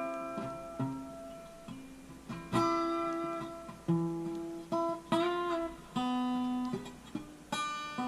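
Background music: slow acoustic guitar, single plucked notes and chords that ring out and fade, one note bending in pitch about five seconds in.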